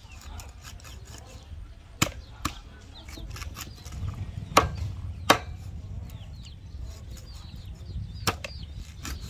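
Meat cleaver chopping a whole fish into pieces on a wooden chopping board: about six sharp chops at uneven intervals, the loudest two about halfway through.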